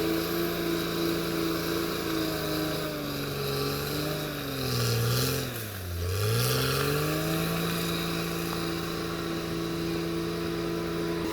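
Caterpillar D6R XL bulldozer's diesel engine running steadily. About halfway through, the engine speed sinks a long way for a few seconds, then climbs back to where it was.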